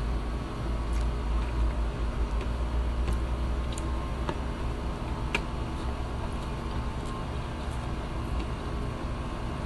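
Eating sounds: a person chewing rice with scattered small clicks and smacks, over a steady low hum.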